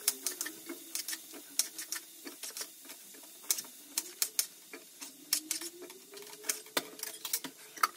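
Food frying in hot oil, crackling with sharp, irregular pops, over a faint wavering tone.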